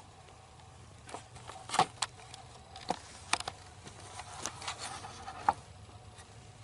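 Irregular crackling and rustling of something moving through dry leaves and brush, a few sharp snaps among them, from about a second in until near the end: the footfalls of a fisher coming in close, first taken for a deer.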